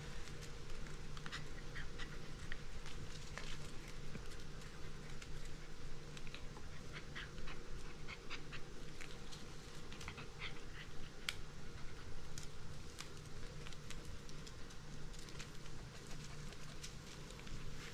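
A puppy tugging and worrying at a rope tug toy, its claws clicking and skittering irregularly on a tile floor, over a steady low hum.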